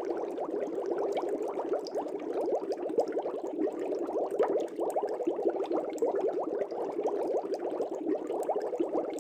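Air bubbling up through aquarium water: a dense, steady stream of small, quick gurgles with no pause.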